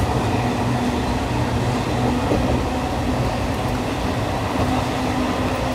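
Moving train heard from inside the carriage: a steady running rumble with a low, even hum.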